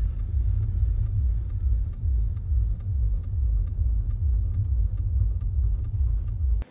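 Low rumble of a car driving on a road, heard from inside the cabin, with faint high ticks about twice a second; it cuts off suddenly near the end.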